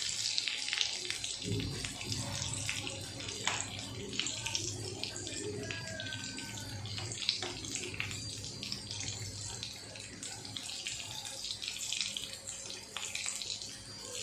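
Bread pakoras deep-frying in hot oil in a kadai: a steady sizzle dotted with many small crackles and pops, with the occasional clink of a slotted metal spoon turning them in the pan.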